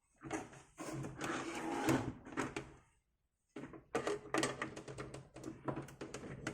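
Screwdriver turning the security screws out of an Amiga 500's plastic case: rasping and clicking, with small knocks as the case is handled. The sound cuts out completely for under a second about three seconds in.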